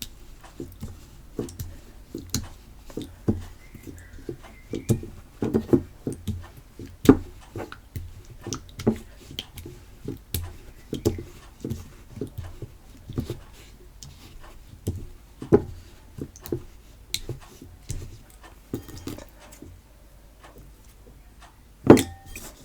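Hands kneading and stretching homemade PVA-glue slime: irregular wet squelches and small sticky pops, a couple a second, with one sharper smack near the end.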